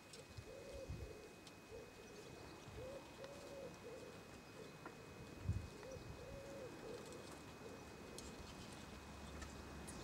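A pigeon cooing faintly in repeated phrases of several soft, even notes. There is a brief soft knock about five and a half seconds in.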